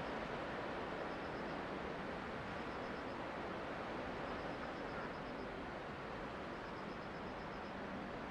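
Steady rushing hiss of wind and rain as a typhoon approaches, with faint high-pitched chirping trills recurring every second or so.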